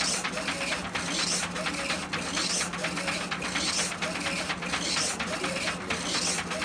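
Funsun DTF printer's printhead carriage shuttling back and forth across the film while printing: a whirring sweep that swells and dips with each pass, about once every 0.6 seconds, over a steady low hum.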